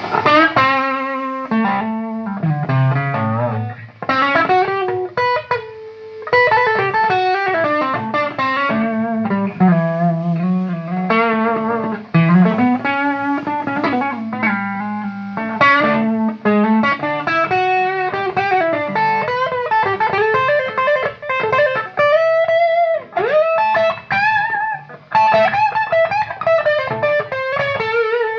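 Electric guitar played through a Bugera 333XL tube amplifier on its overdrive channel: a lead line of single held notes with vibrato and string bends.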